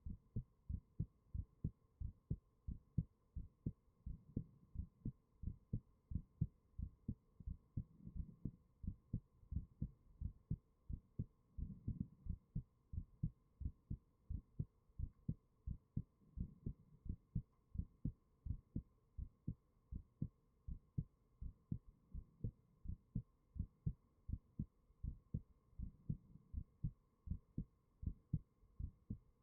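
Human heartbeat recorded close up through a 3Dio binaural microphone: a steady, even pulse of soft low thuds, with a faint steady hum behind it.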